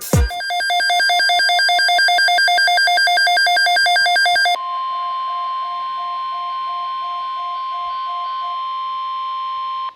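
Emergency Alert System alert tones. Rapid pulsing electronic beeps run for about four seconds, then a single steady high alert tone holds for about five seconds and cuts off abruptly, the signal that the spoken weather warning message follows.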